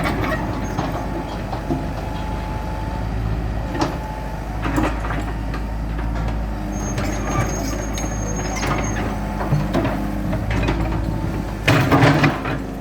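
Hitachi EX100-2 hydraulic excavator working with its engine running steadily, over scattered clanks and knocks. A thin high squeal lasts about two seconds midway, and a louder burst of knocking and crunching comes near the end.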